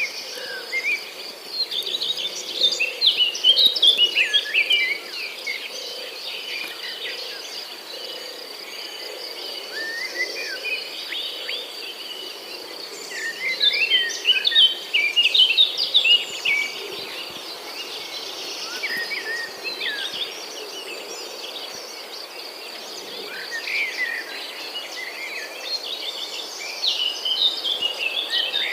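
Birds chirping and singing in repeated bursts over a steady, high-pitched insect drone.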